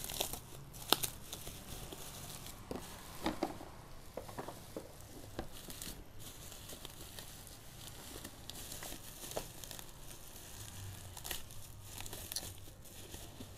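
Bubble wrap crinkling and rustling as it is slit with a knife and wrapped packages are handled in a cardboard box, with scattered sharp crackles and clicks, the sharpest about a second in.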